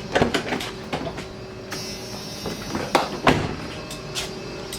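Knocks and clicks from handling around a vehicle, loudest about three seconds in, with a brief hiss about two seconds in.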